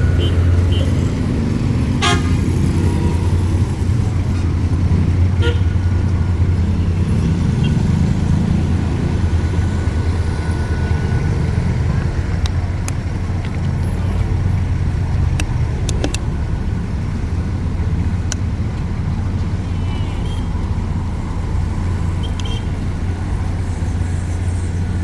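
Busy road traffic: a steady low rumble of vehicles, with car horns tooting now and then.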